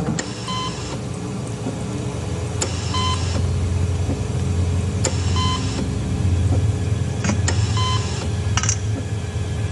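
Operating-room patient monitor beeping about every two and a half seconds, four beeps in all, over a low steady hum, with a few sharp clicks in between.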